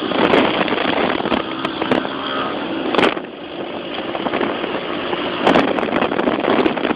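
Small motorcycle engine running under way, heard from the moving bike, mixed with wind rushing over the microphone.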